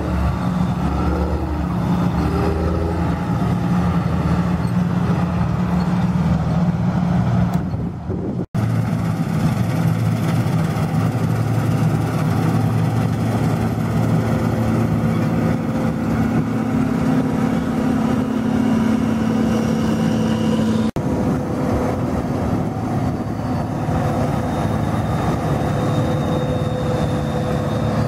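Diesel farm machinery running steadily under load: a John Deere tractor with a grain trailer, then, after a cut about eight seconds in, a John Deere combine harvester working through standing grain. The engine sound stays level throughout.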